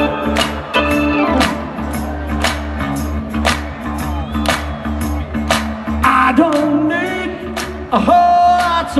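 Rock band playing live over a PA: organ and guitar tones over a drum beat of about two hits a second, with sliding, wavering notes near the end.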